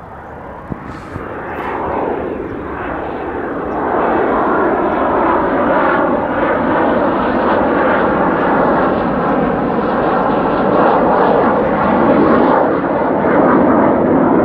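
CF-18 Hornet fighter's twin General Electric F404 jet engines on a low approach. The jet noise grows steadily louder over the first few seconds as the aircraft nears, then stays loud as it passes close overhead.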